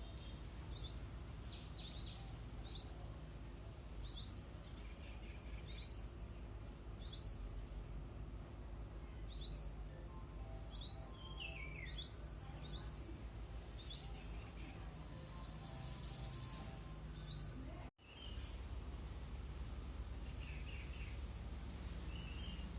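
A hummingbird singing: a run of short, sharp, very high squeaky notes repeated about once a second. The song breaks off abruptly near the end, leaving only a few fainter chirps.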